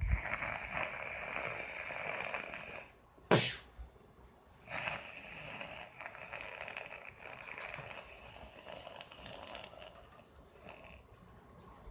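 Snoring in sleep: two long, hissing snore breaths, the first about three seconds and the second about six, with a short sharp snort between them.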